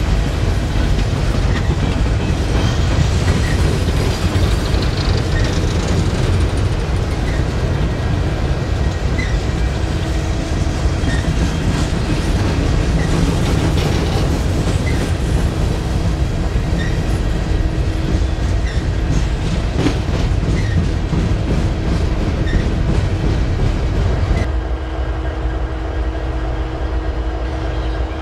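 Freight train of open hopper cars rolling past with a steady heavy rumble, the wheels clicking over the rail joints about once a second. About 24 seconds in, the sound gives way to the steady drone of Norfolk Southern diesel locomotives approaching at the head of a train.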